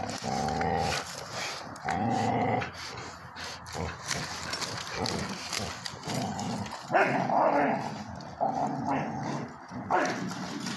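Several dogs growling in repeated bouts as they play tug-of-war over a toy, pulling it between their jaws.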